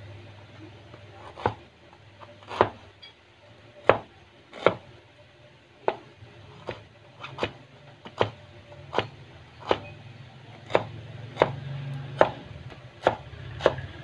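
Kitchen knife chopping on a bamboo cutting board: about fifteen separate sharp knocks of the blade striking the board, starting about a second and a half in and falling into a steady rhythm of roughly one cut every 0.7 seconds.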